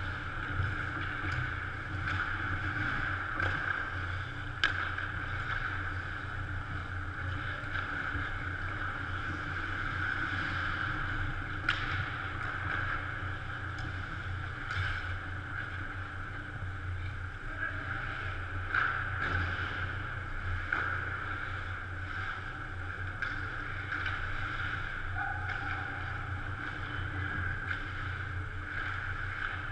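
Steady hum of an indoor ice rink, with a few faint, sharp clicks of sticks and puck from play at the far end of the ice.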